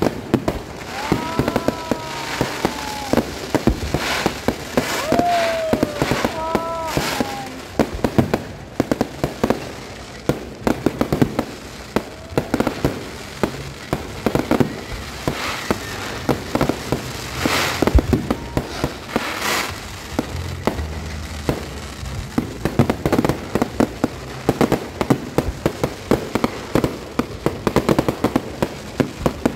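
Aerial fireworks display: a steady run of sharp bangs and crackling bursts from shells going off overhead, many in quick succession.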